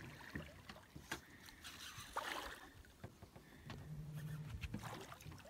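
Faint water splashing and sloshing against a small boat's hull as a hooked peacock bass thrashes at the surface beside it, with a louder splash a little over two seconds in.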